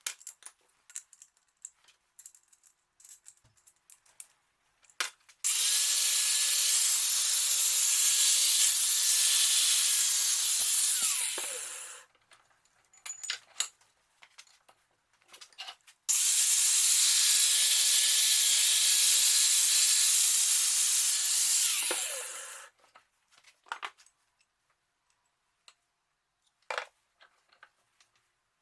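A handheld electric power tool runs twice, about six seconds each time, a steady whine over loud hiss, and each time winds down with a falling pitch. Light clicks and knocks of parts being handled come between and after the runs.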